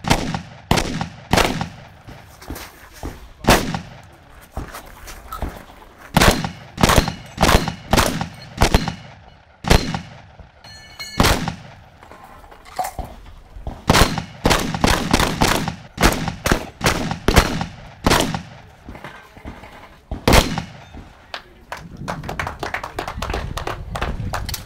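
Shotgun fired in rapid strings during a practical shotgun stage: dozens of sharp shots, many in quick pairs and runs, with a pause of a couple of seconds about ten seconds in.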